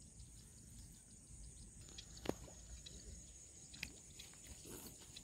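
Quiet open-air ambience: a faint steady high-pitched drone with low rumble underneath, broken by two brief sharp clicks, the louder about two seconds in and a softer one near four seconds.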